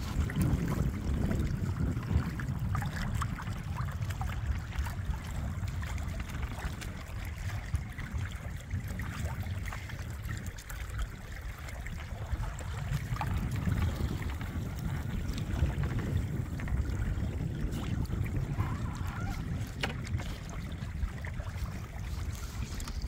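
Wind buffeting the microphone over water splashing and trickling along the hull of a small sailboat under sail, with a few faint clicks.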